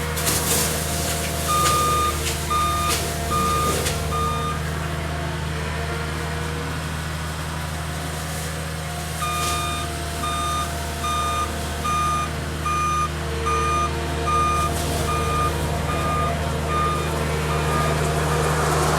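Cat 279D skid steer's backup alarm beeping steadily as it reverses, about one and a half beeps a second, in two runs: a short one near the start and a longer one in the second half. The loader's diesel engine runs steadily underneath.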